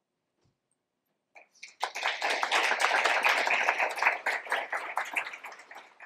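Audience applauding, starting with a few scattered claps about a second and a half in, filling out just after, and thinning out near the end.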